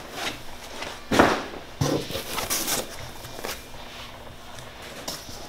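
Rustling and knocking of black foam packing being lifted out of a cardboard box, with a louder scrape about a second in and a knock shortly after, then smaller rubbing and clicking.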